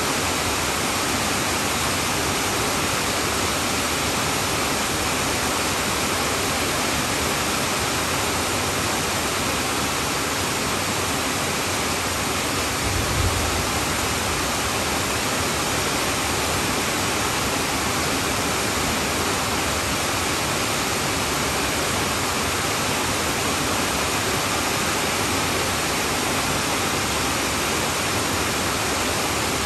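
Heavy rain pouring steadily on a tin roof, a dense, even hiss. About halfway through there is a brief low thump.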